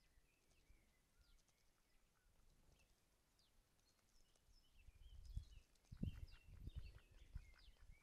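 Mallard ducks pecking at birdseed on the ground, a run of soft taps starting about five seconds in. Faint songbird chirps throughout.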